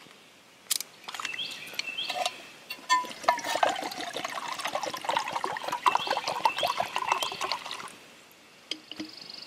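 Water being poured into a pot, splashing and gurgling for about seven seconds before it stops.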